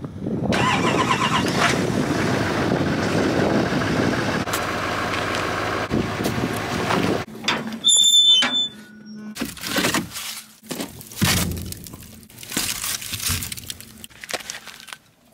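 Diesel pickup engine running loudly for about seven seconds, then cut off abruptly. About eight seconds in there is a short high squeal, followed by scattered metal clanks and knocks as a wood furnace firebox is worked with a poker.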